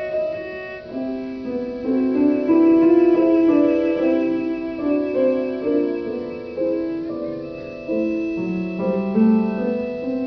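Cello playing a bowed melody with held notes over a piano accompaniment.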